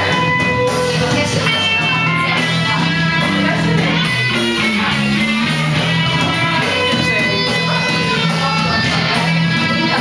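Guitar-led music playing steadily, with a bass line underneath.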